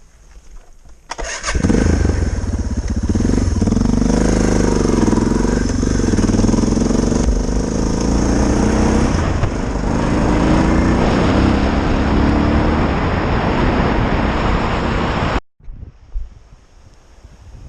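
Suzuki DR650's single-cylinder four-stroke engine starting about a second in, then running with the revs rising and falling. It cuts off suddenly near the end.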